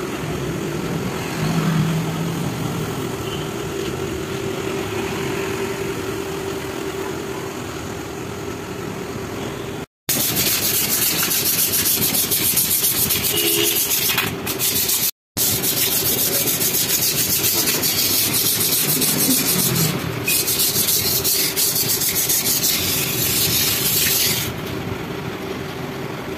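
Hand rubbing on the metal of a tractor clutch part, a hissing scrape over a constant hum. The sound drops out briefly twice and the scraping eases off near the end.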